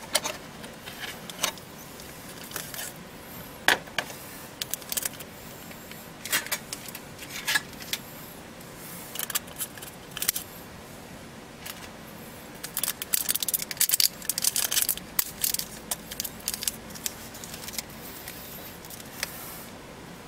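Hands handling a Nikon D3 camera and a cleaning swab: scattered light clicks, taps and rustles, coming thickest about two-thirds of the way through.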